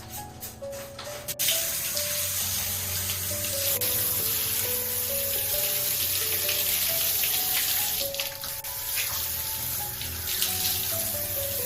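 Water running in a steady stream, starting suddenly about a second and a half in. Soft background music plays throughout.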